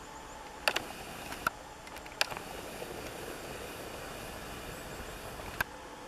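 A handful of sharp clicks from a handheld camera being handled as it zooms out: two close together about a second in, two more within the next second and a half, and one near the end, over a steady low background hiss.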